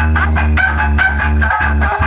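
Loud electronic dance remix played through a large sound system of stacked bass and mid speaker cabinets, with heavy sustained bass and a steady beat.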